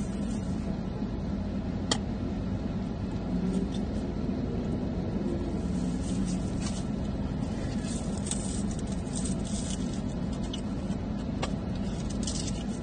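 Steady low hum inside a car's cabin, with crinkling of plastic and paper food wrapping being handled and a sharp click about two seconds in.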